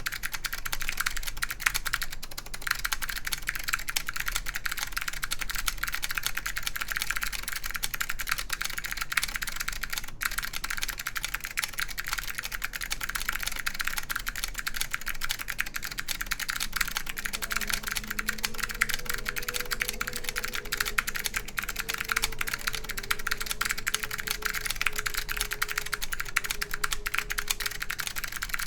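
Continuous typing on an ai03 Lunar II mechanical keyboard with clicky SKCM Blue Alps switches on an aluminium plate, with Apple Extended Keyboard II keycaps: a dense, steady stream of sharp key clicks.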